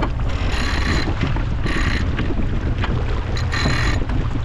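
Wind buffeting the microphone on a racing sailboat under way, with water rushing along the hull; three short hissing surges come about a second and a half apart.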